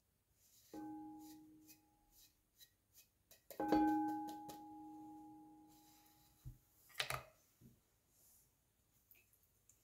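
A glass mixing bowl rings twice as the edge of a wooden board knocks against it. The second ring is louder and fades over about three seconds. Light ticks and scratches from a pastry brush sweeping paprika powder off the wood come in between, and a short rustle or clatter sounds about seven seconds in.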